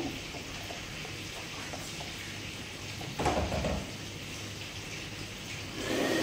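Chilli spice paste simmering in a pan with a soft, steady sizzle as coconut milk is added. A short, louder scrape about three seconds in and again near the end, when a spoon starts stirring the coconut milk into the sauce.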